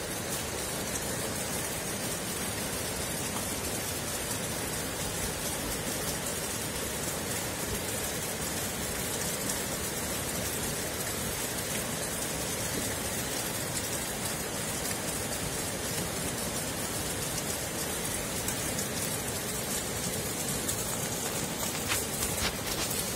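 Steady rushing-water noise from heavy rain and muddy floodwater running down a stony channel, with a few brief clicks near the end.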